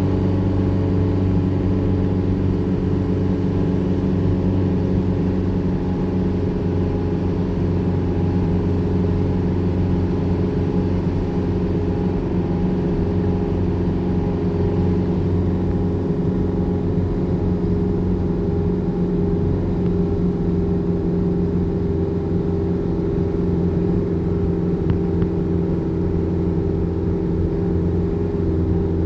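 An engine running steadily at an even, unchanging pitch.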